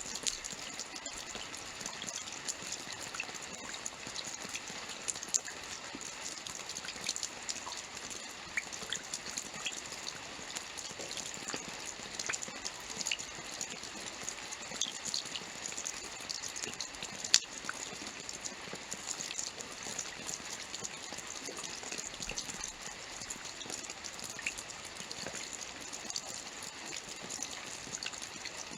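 Steady rainfall: an even hiss of rain with many separate drop ticks through it, and one sharper drop a little past halfway.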